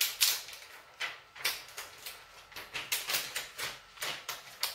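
Clear plastic wrapping crinkling as a new laptop is handled in it, a string of short, irregular crinkles and light taps.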